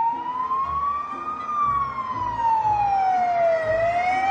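Ambulance siren in a slow wail: the pitch rises, falls slowly, then starts rising again.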